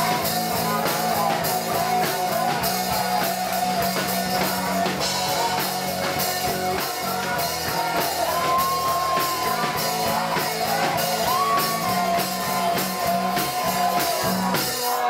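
Live rock band playing: electric guitars, bass guitar and drum kit with steady drum beats, and singing over them.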